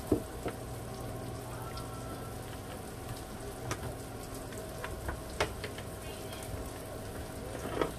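Parmesan-breaded tilapia fillets frying in a pan of oil: a steady sizzle with scattered small pops and crackles. A short sharp knock comes just after the start.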